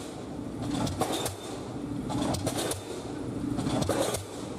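Pile-driving hammer striking concrete piles into the ground, with sharp blows roughly every one and a half seconds over a steady machine hum.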